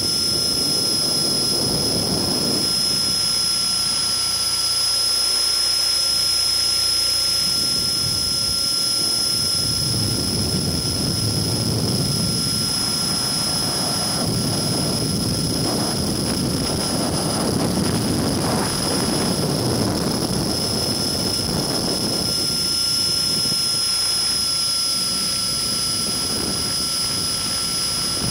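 Electric Align T-REX 600E RC helicopter heard from the camcorder mounted on it in flight: a steady high whine from the brushless motor and gears over a low rushing noise that swells and fades every few seconds.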